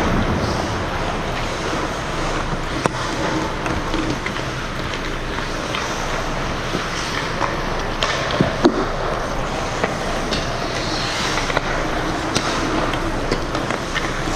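Ice hockey skates scraping and carving on the ice, with sticks and puck clacking. A couple of sharp knocks stand out a little past the middle.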